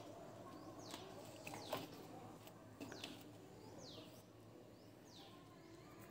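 Faint bird chirps: short high calls that slide down in pitch, repeated every second or so, with a few soft clicks.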